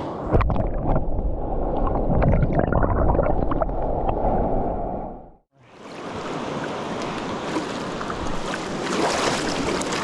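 Muffled water noise heard through a submerged camera, dull and low with small clicks and bubbling. It stops about five and a half seconds in and gives way to the steady rush of a shallow river running over stones.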